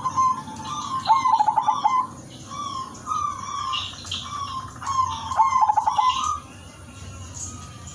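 Zebra dove (perkutut) singing. Its soft coos run twice into a quick stuttering run of notes, about a second in and again about five seconds in. Higher-pitched bird chirps go on throughout.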